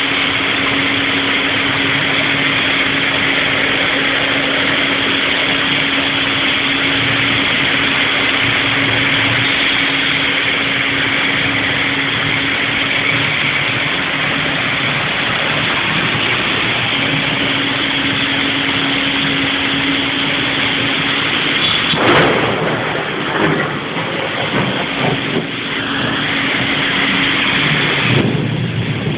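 Heavy rain falling in a steady, even hiss, with a low steady hum underneath that drops out for a few seconds partway through. About three-quarters of the way in comes a single sharp crack, after which the noise is uneven for several seconds.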